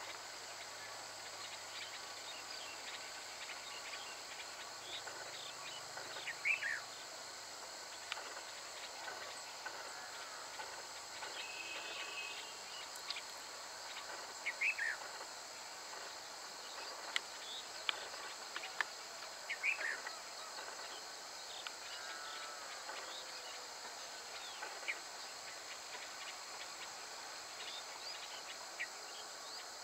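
Steady high-pitched chorus of insects, with short bird chirps every few seconds.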